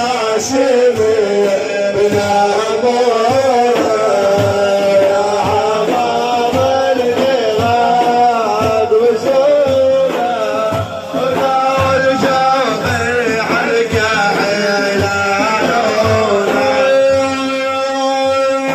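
Iraqi devotional praise music: a winding Middle Eastern melody over a regular hand-drum beat. About 17 seconds in, the melody settles onto a long held note.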